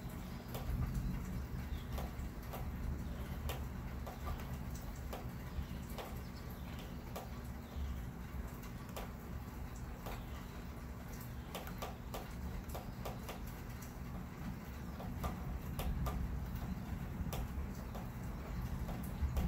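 Outdoor storm ambience: a steady low rumble that swells slightly about a second in and again near sixteen seconds, with scattered faint ticks and clicks throughout.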